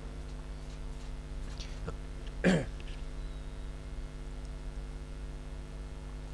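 A man makes a single short cough-like throat-clear about two and a half seconds in, over a steady low hum.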